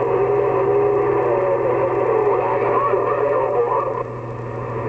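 CB radio receiver audio on 27.025 MHz: a keyed-up signal with static hiss and a steady whistle. About two seconds in, garbled, warbling voice sounds come through the noise. The signal drops back about four seconds in.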